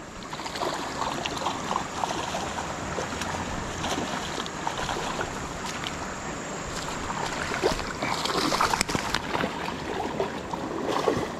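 Water splashing as a hooked trout fights at the surface of a small creek pool, over a steady rush of water noise. One sharp tap stands out about nine seconds in.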